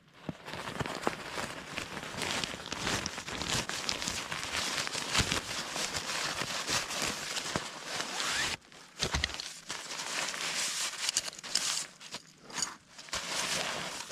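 Nylon stuff sack and tent fabric rustling and crinkling as they are handled: the drawstring is loosened and the tent is worked out of its bag, with a brief pause a little past halfway.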